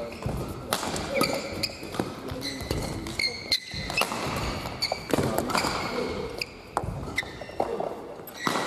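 Badminton doubles rally: a string of sharp racket strikes on the shuttlecock, often under a second apart, with short high squeaks of court shoes on the hall floor, echoing in a large sports hall.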